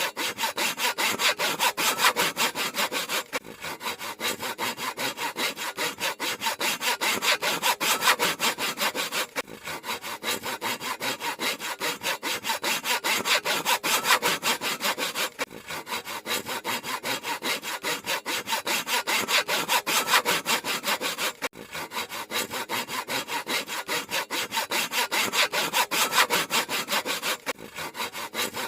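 Handsaw cutting through wood in rapid, even back-and-forth strokes, with a short break about every six seconds.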